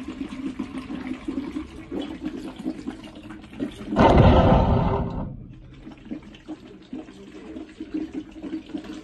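Water bubbling in a plastic bottle as air is blown into it through a straw: a blow-bottle breathing exercise for lung rehabilitation, bubbling in a quick, steady flutter. About four seconds in, a louder rush of noise lasts just over a second.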